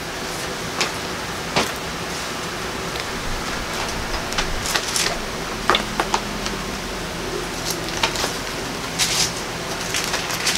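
Pages of a Bible being leafed through, a series of short, irregular paper swishes and rustles, over a steady low room hum.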